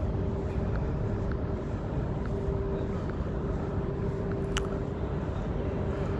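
Steady low rumbling background noise with a faint constant hum, and a single short sharp click about four and a half seconds in.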